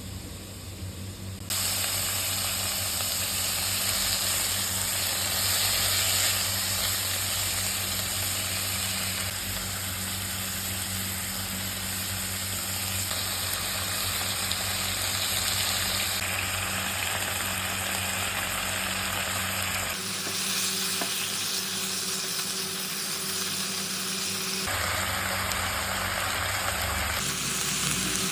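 Onion flower stalks and liver stir-frying in a hot pan, a steady sizzle with stirring, over a constant low hum. The sizzle's texture shifts a couple of times in the later part.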